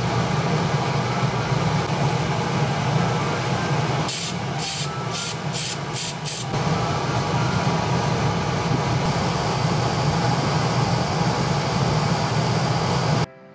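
Steady loud rush with a low hum from airbrush spraying equipment. About four to six seconds in come half a dozen short hissing spurts of the airbrush, and from about nine seconds a brighter, steady spray hiss. It all cuts off suddenly near the end.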